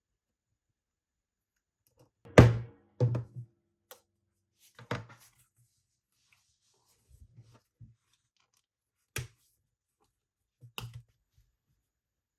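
Leatherworking tools and workpiece being handled on a bench: a handful of separate knocks and taps, the loudest about two and a half seconds in.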